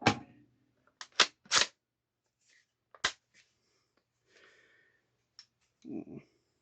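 Sharp metallic clicks of a Steyr AUG rifle's push-through cross-bolt safety being worked back and forth: a click at the start, three quick clicks about a second in, and one more about three seconds in. A duller handling thump follows near the end.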